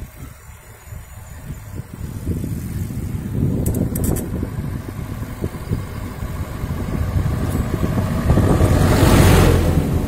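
Oncoming small van passing close by, its engine and tyre noise growing over several seconds and loudest near the end, then falling away.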